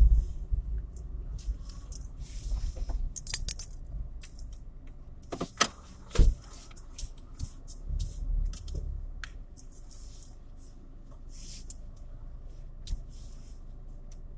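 Keys jangling and clinking in short, scattered bursts inside a slowly moving car, with a few sharper knocks about six seconds in. A low rumble of the car rolling comes and goes under them, and the jingling dies away over the last few seconds as the car comes to rest.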